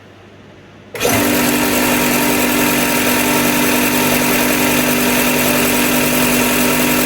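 Bucktool BD4603 direct-drive belt and disc bench sander switched on about a second in, its motor coming straight up to speed and then running steadily with a constant hum and whir.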